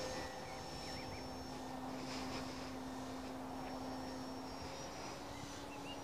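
Dynam Tiger Moth RC biplane's stock electric motor and propeller in flight, a faint, steady drone at an even pitch.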